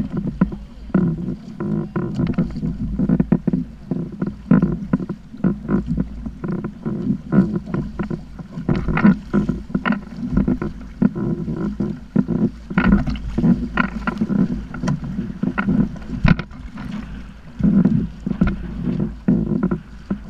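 Water slapping and splashing against a Hobie sit-on-top kayak's hull in choppy water, in quick irregular knocks over a steady low wind rumble on the microphone.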